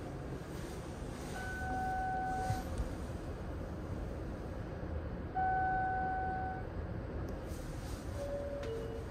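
Interior rumble of a New Red Arrow electric train car, with two long, steady two-pitch beeps about a second each, near two seconds and six seconds in, and a short lower tone just before the end.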